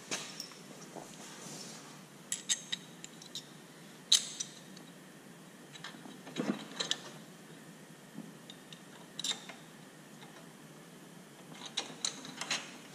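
Small metal parts being handled and fitted by hand: a bolt and bracket set against a metal tube frame, giving scattered clicks, taps and clinks in short clusters, one sharper click about four seconds in.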